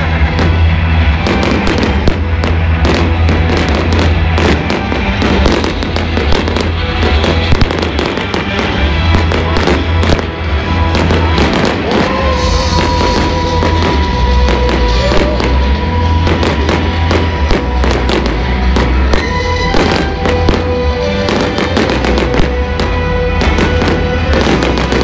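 Fireworks bursting and crackling in rapid, continuous succession, with deep booms, over loud music played with the display.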